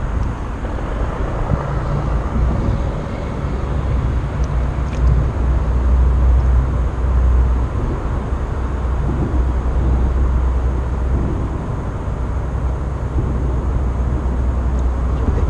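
Steady low rumble of road traffic crossing the concrete highway bridge overhead, heard from underneath the deck. It swells for a few seconds in the middle.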